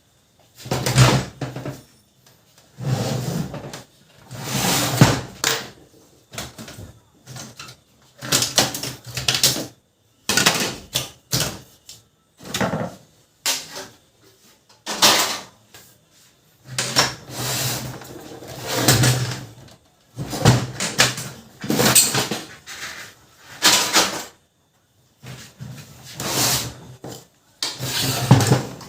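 Plastic covers and parts of a Brother MFC-7360 laser printer being handled and taken apart by hand: irregular clattering, knocking and scraping in short bursts with brief pauses between them.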